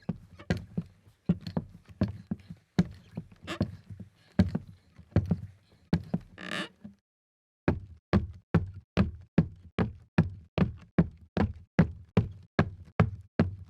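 Boots walking on a creaky wooden floor: heavy, uneven footfalls with a board creaking now and then. After a short silence about halfway through, quicker, even steps follow at nearly three a second.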